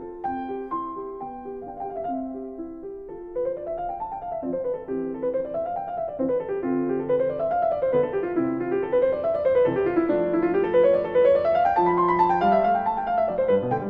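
Background piano music: separate notes at first, then from about three seconds in repeated rising and falling runs over held low notes.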